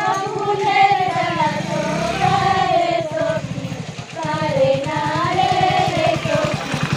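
Group of women singing a Santali Karma song together in unison, one wavering melody line with short breaks between phrases, over a fast, even low pulsing.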